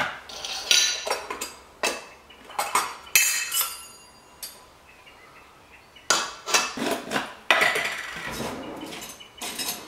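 Stainless steel Vietnamese phin coffee filter parts clinking and clattering as they are set on a glass and on the countertop: a series of separate metallic knocks and clinks, some ringing briefly. A longer rubbing noise near the end.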